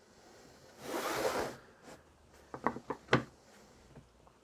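A wooden board slid across a wooden bench top with a single short rub, followed by a few light knocks as wooden pieces are set down in place.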